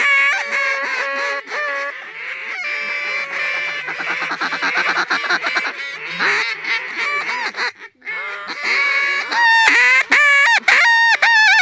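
A large flock of geese honking, many birds calling over one another in a continuous clamour. The calling thins briefly about two-thirds of the way in, then swells louder near the end.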